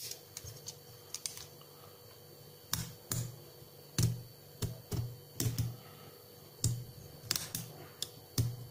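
Utility knife blade cutting and scraping the plastic covering of a multimeter probe lead on a wooden board: a run of short, irregular clicks and scrapes, about one or two a second.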